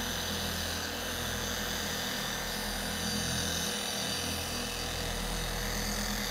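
Chemical Guys TORQ 10FX dual-action polisher running steadily at its lowest speed setting, its orange foam cutting pad spreading scratch and swirl remover over a car's painted hood.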